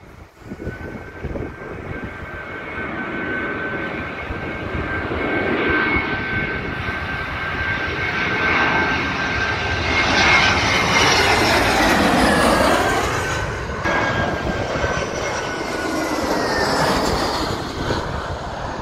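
Turbine-engined airliner passing low directly overhead on final approach to land. A steady high engine whine and roar build to their loudest about ten to thirteen seconds in, with a sweeping change in tone as it passes over, then fade away.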